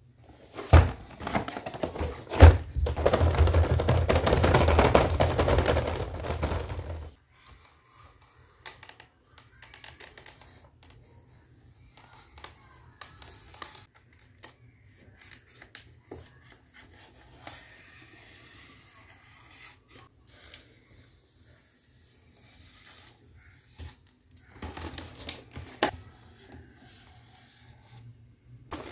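Clear plastic blister packaging being handled and cut open: loud crackling of the stiff plastic for the first several seconds, then quieter scratching of a box cutter blade along the plastic with scattered clicks, and another short burst of plastic handling with clicks near the end.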